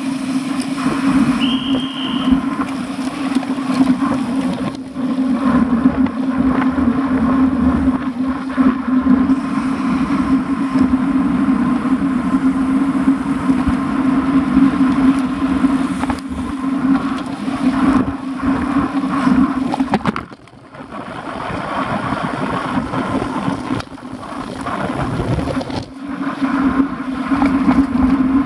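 Steady rumble and rush of road and wind noise picked up by a bicycle-mounted action camera while riding on a wet road, with a constant low drone. Two short high squeaks sound near the start, and the noise drops briefly about twenty seconds in.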